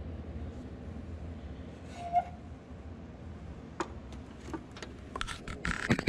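Hand tools on an engine's cylinder head bolts: a wrench with a socket extension being handled and fitted onto the next bolt. There is one short ringing metal clink about two seconds in, then a run of sharp clicks and clanks near the end, over a steady low hum.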